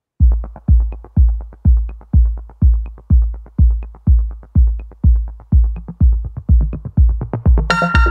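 Electronic background music with a steady kick-drum beat, about two beats a second. A bright synth chord comes in near the end.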